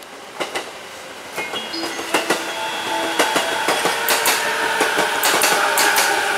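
A train running on the station tracks, growing steadily louder, with quick clicks of wheels over rail joints and a thin whine.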